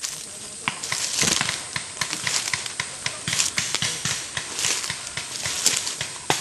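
Footsteps crunching through dry leaf litter and brushing through undergrowth: a dense run of irregular crackles and snaps of leaves and twigs.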